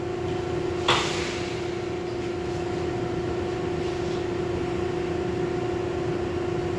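R62 subway train standing at the platform with a steady, even-pitched hum, and a short burst of air hiss about a second in.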